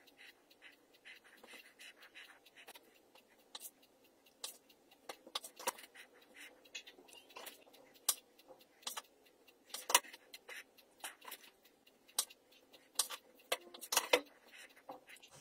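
A kitchen knife tapping on a bamboo cutting board as cherry tomatoes are halved, with soft rustling of shredded lettuce being handled: a string of irregular sharp taps and clicks, the loudest about two thirds of the way in.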